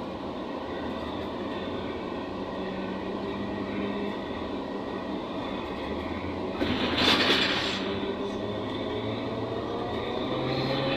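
Inside a ZiU-682 trolleybus under way: steady rumble and hum of the body and tyres, with a brief louder rush of noise about seven seconds in. Near the end the electric traction motor's whine rises in pitch as the trolleybus picks up speed.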